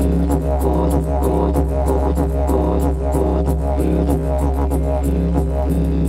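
Didgeridoo playing a steady deep drone, its overtones shifting and pulsing in rhythm, with light quick percussion clicks over it.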